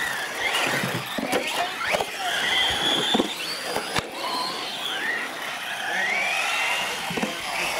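Several radio-controlled UTV trucks running on loose gravel, their motors whining high and rising and falling in pitch with throttle, over the hiss of tyres on gravel. A few sharp ticks cut through along the way.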